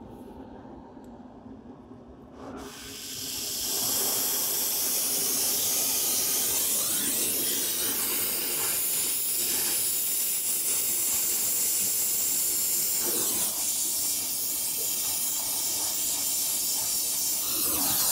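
An oxy-acetylene torch flame hisses steadily as it heats a seized tank track end connector to free it. It is quieter at first while the flame burns yellow, then swells into a loud, even hiss about three seconds in once the flame is turned up to a blue heating flame.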